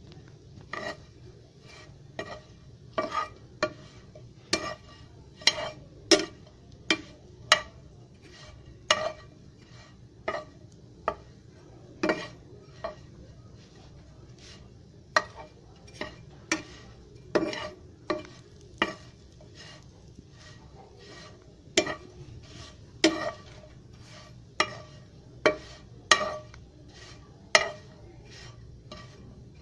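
Metal spoon knocking and scraping against a nonstick frying pan while turning bread cubes frying in a little oil, with sharp ringing taps at an uneven pace of about one a second.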